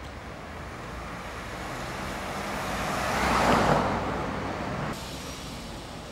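A car passing by on the street, its tyre and engine noise swelling to a peak about three and a half seconds in, then fading. It is cut short abruptly about five seconds in.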